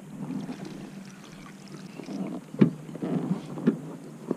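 Small hooked bass splashing at the surface beside a kayak as it is landed, with a few sharp knocks of gear handling, the loudest about two and a half seconds in.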